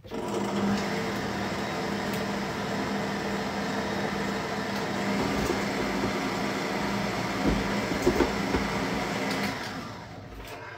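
Electric stand mixer running at a steady speed, its beater working a wet batter of butter, sugar, eggs and vanilla in a stainless steel bowl. It starts suddenly and winds down near the end as it is switched off.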